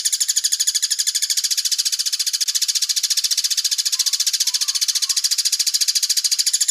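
Crested jay (sogon) giving a long, even, high-pitched rattling trill of about a dozen pulses a second: the rapid 'tembak' rattle used as tutor song for kept sogon birds.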